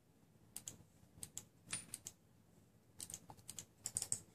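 Faint, irregular light clicks and taps of small metal parts handled by fingers, a button magnet and a cylindrical vape battery, with a quicker run of clicks in the last second or so.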